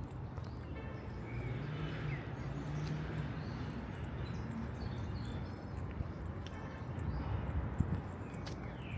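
Outdoor city ambience: a steady low hum of distant traffic, with small birds chirping now and then and footsteps ticking on pavement.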